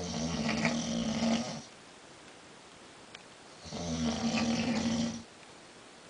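A man snoring loudly: two long snores about three and a half seconds apart, each lasting about a second and a half, with a low buzzing tone under a noisy rattle.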